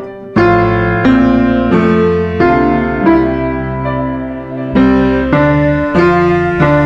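Background music: a keyboard, like a piano, playing a slow melody of single struck notes, each one fading before the next.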